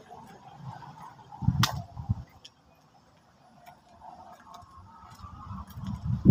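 Handling noise from a hand-held phone being moved about while walking: scattered light clicks, with two low thumps about one and a half seconds in.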